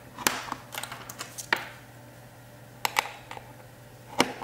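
Banana plugs of spring-hook test leads being pushed into the jacks of a small plastic-cased ESR meter adapter: a scattering of sharp clicks and taps, two close together about three seconds in and another near the end.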